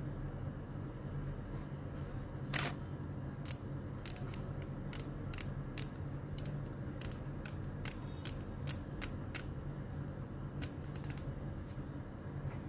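Canon EOS 6D main dial being turned to test it after its rubber was replaced, its detents giving a run of sharp clicks at about two a second. One longer click comes near the start.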